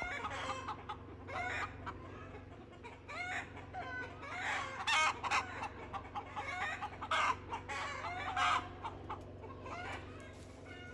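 Chickens clucking and squawking in a string of short, irregular calls.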